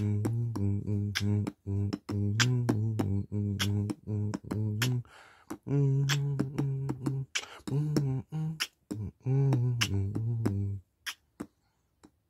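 A man beatboxing: a low vocal bass line in short, stepped notes with sharp mouth clicks and snares on top. The beat stops about eleven seconds in, leaving a few scattered clicks.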